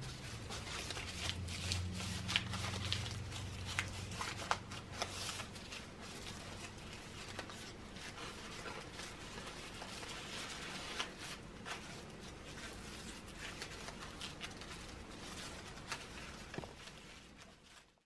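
Strips of crumpled brown paper rustling and crinkling under hands as they are handled and pressed into place, with irregular small crackles; the sound fades out near the end.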